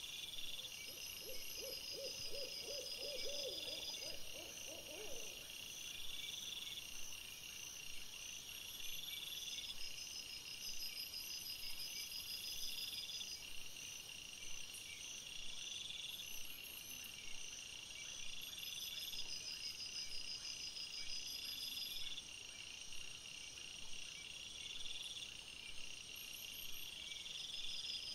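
Night insect chorus, crickets chirping in steady repeating pulses. A short run of rapidly repeated, lower calls sounds over it from about a second in to about five seconds in.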